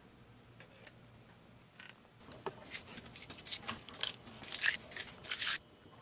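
A quick run of crackling scrapes from hand work on a glass tray. It starts about two seconds in, grows louder and cuts off suddenly near the end.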